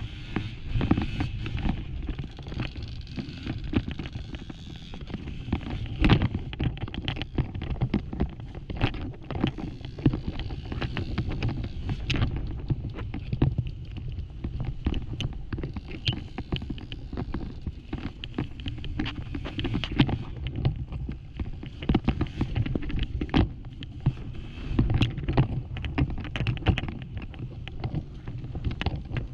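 Off-road motorcycle engine running under load, muffled and mixed with wind noise on the microphone, with frequent sharp knocks and clatters as the bike rides over rough, rocky ground.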